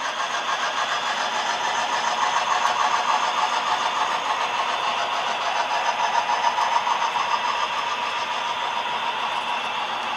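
Several HO scale model trains running on the layout at once, a steady mechanical hum.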